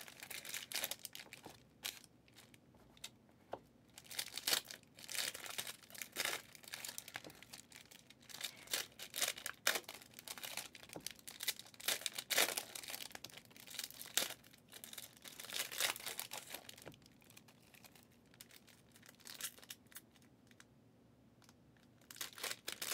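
Foil wrappers of 2023 Donruss Elite football card packs being torn open and crinkled by hand, in repeated short crackling bursts, with a lull of several seconds near the end.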